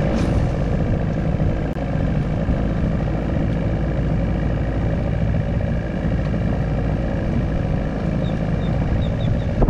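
Wind buffeting the microphone in a steady, loud rumble, with a faint steady hum underneath.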